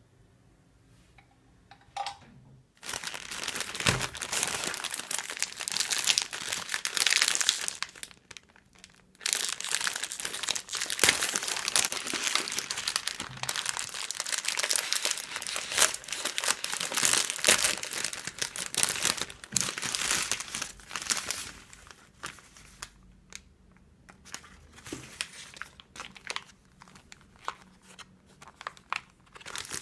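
Crinkling and rustling of wrapping or packaging being handled and torn, in a long busy stretch with a short break about eight seconds in, then a few light clicks and taps near the end.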